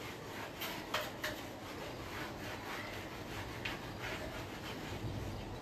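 Handheld whiteboard eraser rubbing across a whiteboard in repeated wiping strokes, with two sharper strokes about a second in.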